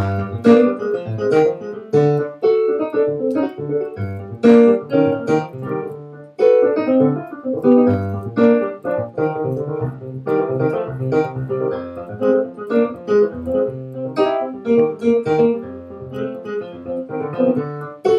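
A digital stage keyboard played with a piano sound: chords in the middle register over a bass line, notes struck one after another throughout, with a brief lull about six seconds in.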